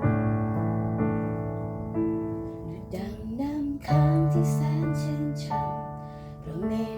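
Piano playing sustained chords as accompaniment to a praise song, with a singing voice coming in about three seconds in.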